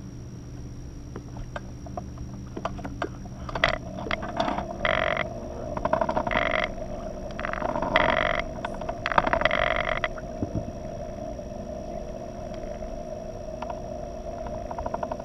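Spinning reel being cranked in several short bursts, a rasping whir with rapid clicks, between about four and ten seconds in.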